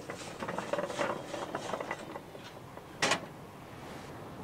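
Lit charcoal briquettes clattering out of a metal charcoal starter onto a steel table: a quick run of rattles and knocks, then one louder knock about three seconds in.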